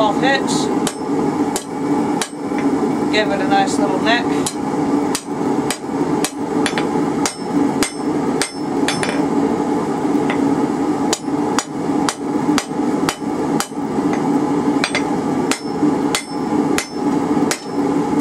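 Hand hammer striking red-hot rebar on a steel anvil, about two blows a second, each with a short metallic ring, drawing the bar out into a taper. A steady low hum runs underneath.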